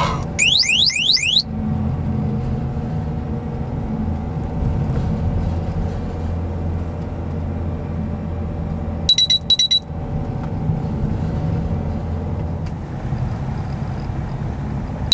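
Van cab noise: engine and road drone, steady throughout. About half a second in comes a quick run of rising electronic chirps, and about nine seconds in a short burst of rapid high beeps, the driver fatigue monitor's warning alarm.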